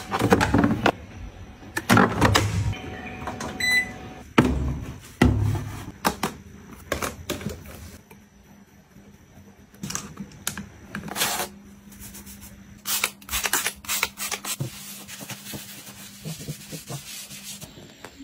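Close-up handling of plastic cleaning-product bottles: knocks, clunks and cap sounds in the first half. In the second half come several quick trigger sprays from a spray bottle of cleaner.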